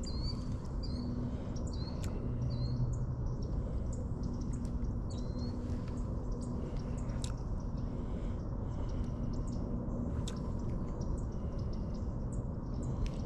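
A bird chirping: a series of short, high chirps, most of them in the first half, over a steady low hum, with scattered sharp clicks.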